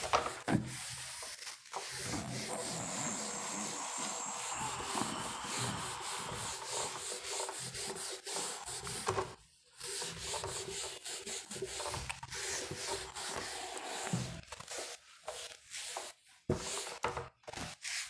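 A steady rubbing, scratching noise that stops briefly about halfway and then goes on as shorter, broken scrapes.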